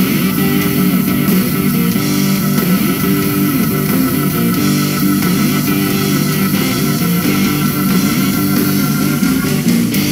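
Loud rock-style music with guitar. A wavering high note is held through most of it and stops just before the end.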